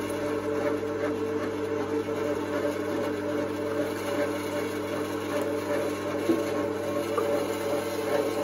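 Alveored stainless-steel electric meat mincer running with a steady hum, grinding chunks of raw meat into mince.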